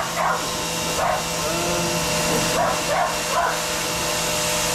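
Suyncll electric pressure washer running with the trigger held, a steady hiss of spray over a motor hum, while a dog barks about five times over it.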